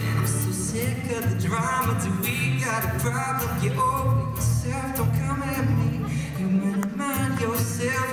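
Male voice singing a pop song live over his own strummed acoustic guitar.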